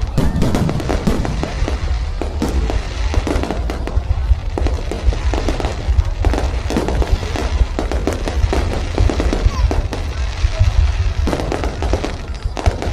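A dense, continuous barrage of aerial fireworks, with rapid crackling and popping bursts and a deep rumble underneath. Music plays along with it.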